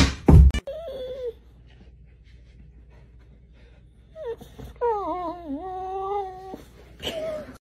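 Two loud thumps as a cat leaps off a cat tree, then a dog whining: a wavering, drawn-out whine of about a second and a half, with a shorter whine a little later.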